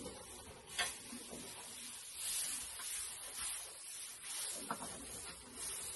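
Pitchfork tossing and scraping loose hay bedding: repeated rustling swishes of flung hay, with a sharp knock about a second in and another near the end.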